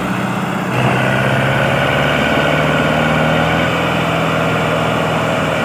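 Sonalika DI 750 tractor's four-cylinder diesel engine running steadily, growing louder about a second in as it pulls a loaded trolley through the field. The owner's complaint is that it bogs down, won't pick up revs and lacks power.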